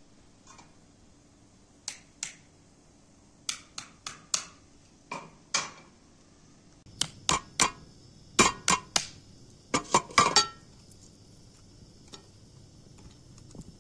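Walnut shells cracking and snapping as they are pried apart by hand to get at the kernels: a run of sharp, crisp cracks at irregular intervals, a few scattered at first, then coming fast and loudest for a few seconds before stopping.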